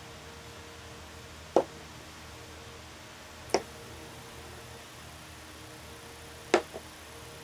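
Chess pieces set down on a chessboard by hand: three sharp clacks about two seconds apart, the last followed at once by a lighter tap, over a faint steady hum.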